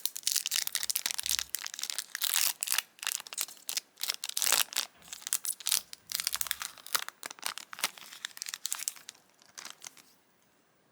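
Foil booster-pack wrapper crinkling and being torn open by hand, in dense crackly bursts that stop about nine seconds in.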